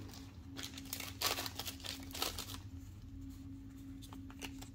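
Faint crinkling of a foil Pokémon booster-pack wrapper and rustling of trading cards being handled, a few short rustles over a faint steady hum.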